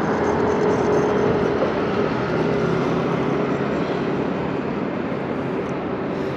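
Steady city traffic noise from passing vehicles, with a steady hum running through it that fades toward the end.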